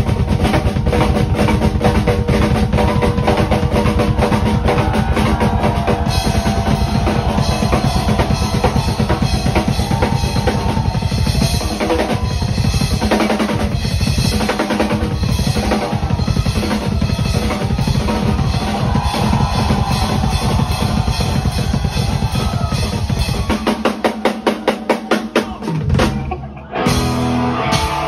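Live drum kit solo: fast, dense strokes over a steady run of bass drum beats, with snare, toms and cymbals. A little before the end it breaks into a string of separate hard hits and then briefly drops out.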